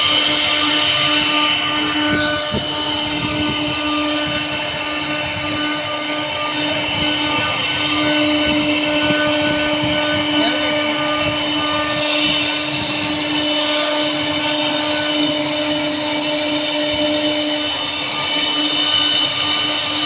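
Electric wood planer running steadily, a constant motor whine over a rushing noise.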